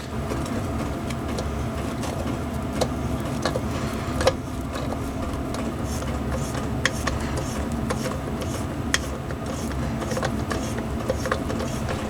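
Milling machine running steadily, with a few light clicks and ticks scattered through it.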